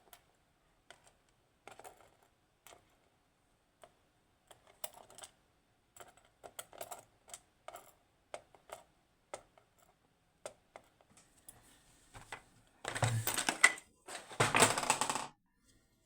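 Irregular light clicks and taps of small metal lock parts, the pins of a disassembled Securemme K2 dimple lock, being handled and set down. Near the end come two louder, harsher noises, each about a second long.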